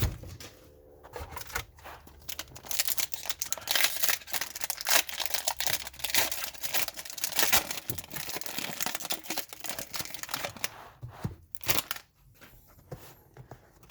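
A trading-card pack wrapper being torn open and crinkled by hand, a dense crackling rustle through most of the stretch that dies down near the end.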